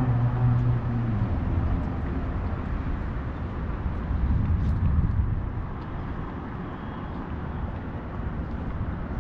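Downtown street traffic: a passing vehicle's engine hum dies away in the first second or so, then steady traffic noise with another vehicle swelling past about halfway through.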